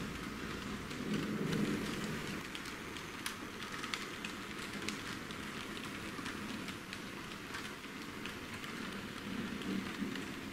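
Steady rain noise with scattered drop-like ticks, a storm rain soundtrack.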